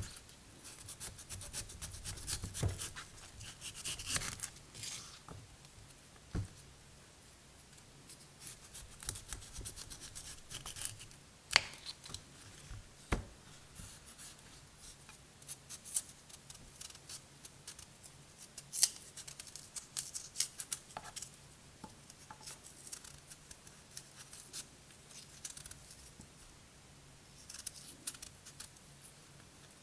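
A serrated knife peeling a raw kohlrabi: repeated scraping and slicing as the blade cuts through the tough skin, with a few sharp clicks among the strokes.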